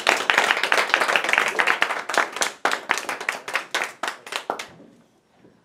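A small group applauding, the clapping dying away near the end.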